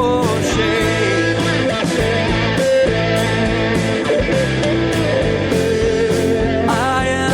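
Rock song playing: electric guitar and drums at a steady beat, with no singing in this stretch.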